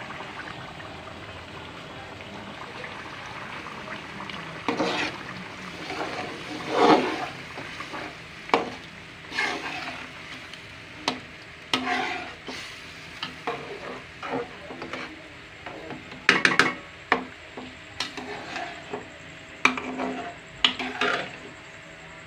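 Metal spoon stirring chicken karahi curry in a metal pot over a steady sizzle of the cooking curry; from about four seconds in, the spoon scrapes and knocks against the pot at irregular intervals.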